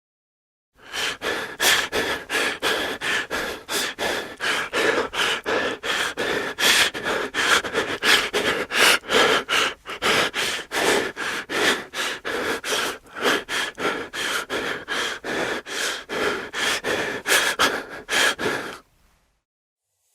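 Horror sound effect of rapid, panting breaths, about three to four a second, kept up steadily and then cut off sharply near the end.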